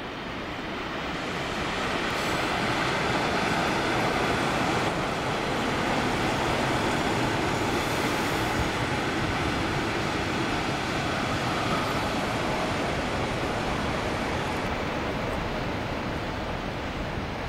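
A train running on the rails, a steady rumble and clatter of wheels that swells over the first couple of seconds and then holds.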